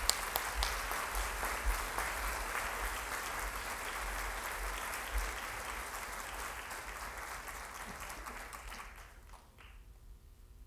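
Audience applauding, a dense patter of many hands clapping that dies away about nine seconds in.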